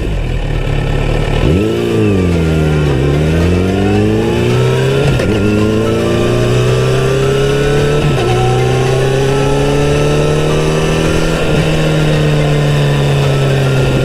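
Kawasaki Z900RS inline-four engine pulling away and accelerating up through the gears. Its pitch rises and falls once, then climbs steadily with a sudden drop at each upshift, three times in all.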